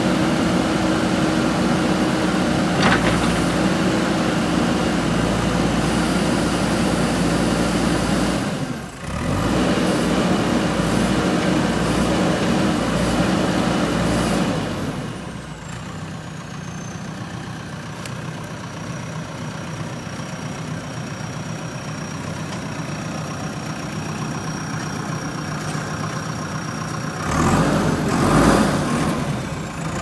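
JCB 3DX backhoe loader's diesel engine running steadily, dropping quieter about halfway through and picking up louder again near the end.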